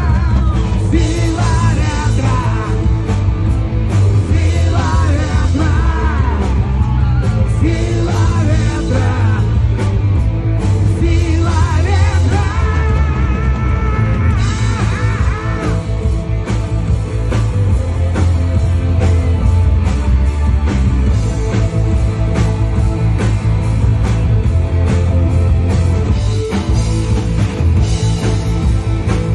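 Loud rock music from a band playing an instrumental passage, with heavy bass and drums. A wavering lead melody rides on top through the first half.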